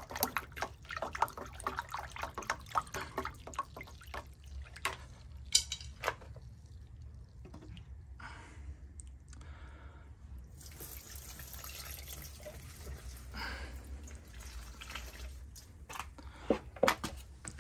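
A stick stirring liquid in a plastic measuring jug, with many quick light taps and sloshes for the first few seconds. About ten seconds in, the feed solution is poured from the jug onto the potting soil of the plant, trickling steadily for several seconds.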